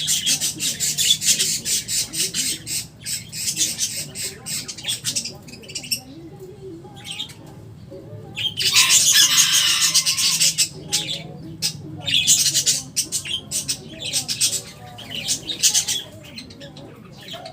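Pet parrots squawking in runs of harsh, rapid calls, with one longer, louder screech about nine seconds in.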